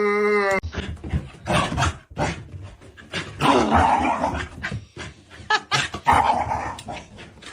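A dog howling briefly, then a run of rough growling and barking noises in uneven bursts.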